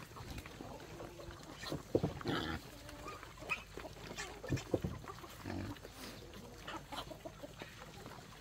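Pigs grunting in short, irregular calls, loudest about two seconds in and again around the middle.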